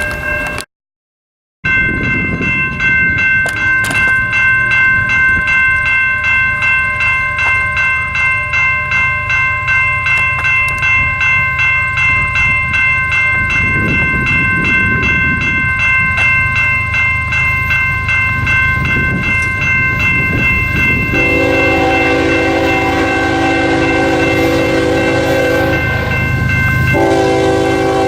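Railroad grade-crossing bell ringing steadily, about two strokes a second, over the rumble of a passing train. Near the end a locomotive air horn sounds a long blast, a short break, and then a second blast.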